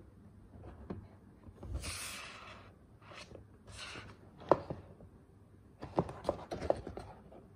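Hands handling a cardboard model-kit box: a few rubbing, sliding swishes on the cardboard, then sharp taps and clicks, clustered a little before the end, as the box is turned over in the hands.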